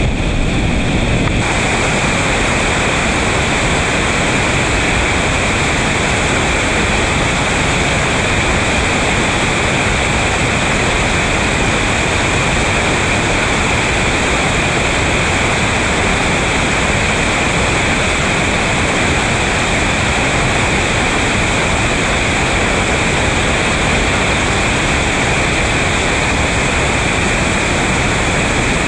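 Whitewater rapids and a ledge waterfall rushing steadily, a loud, even wash of water noise that grows fuller about a second in.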